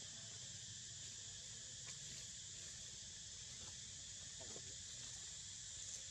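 Faint, steady, high-pitched chorus of insects buzzing without a break.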